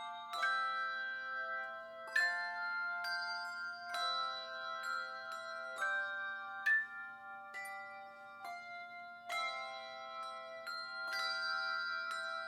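Slow instrumental music of struck, ringing notes played in chords, a new note or chord about every second.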